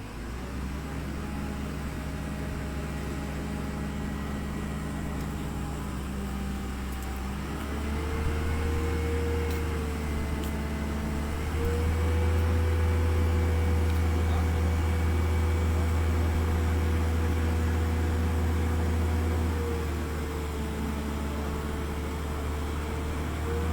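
A large engine running steadily nearby, revving up about eight seconds in and higher again about twelve seconds in, then easing back down near twenty seconds before climbing again at the end.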